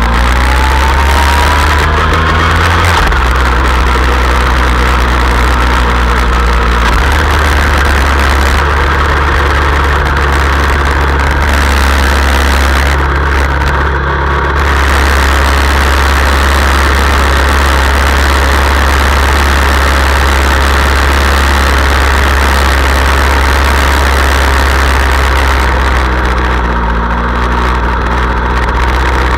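Motorcycle engine running steadily at low revs, heard close up from a camera mounted on the bike, with wind noise on the microphone. A thin whine rises in pitch over the first few seconds as the bike pulls away.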